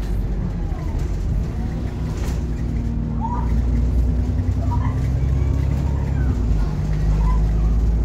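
Stagecoach bus 19845's engine pulling hard under way, heard from inside the passenger saloon, its low drone swelling louder about halfway through and again near the end. A few short squeaks and rattles from the interior fittings sound over it.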